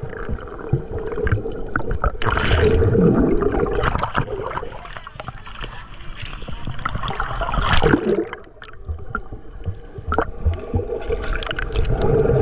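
Action camera dipping under and back out of shallow seawater: muffled underwater gurgling and bubbling, alternating with splashing and sloshing at the surface.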